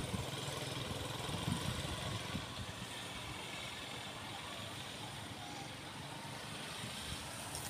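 Small motorcycle engine running as the bike rides away, its sound fading slightly into steady outdoor background noise.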